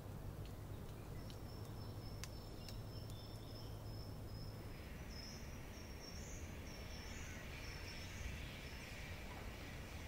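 Faint forest ambience with a bird giving a high, thin run of short repeated notes for most of the clip, over a low hum. A soft hiss joins about halfway through.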